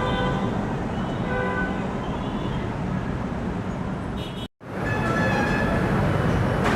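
LRT-1 light rail train running, with steady whining tones at several pitches over a constant rumble of traffic. The sound cuts out completely for a split second about four and a half seconds in.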